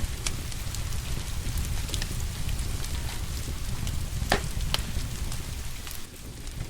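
Wood fire crackling: scattered sharp pops and one louder crack about two-thirds through, over a steady low rumble and the hiss of rain. The rumble drops away briefly near the end.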